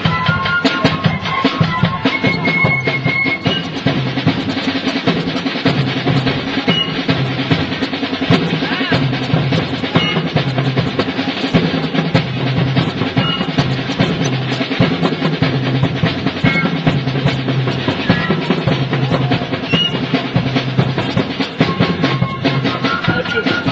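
Band music with busy drumming, snare rolls and bass drum, over a repeating bass figure.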